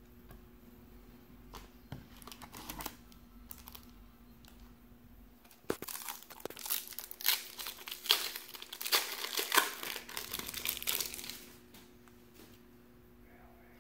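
A 1993-94 Fleer Ultra trading-card pack wrapper being torn open and crinkled, a dense crackling run from about six to eleven seconds in. It is preceded by a few faint taps as cards are handled.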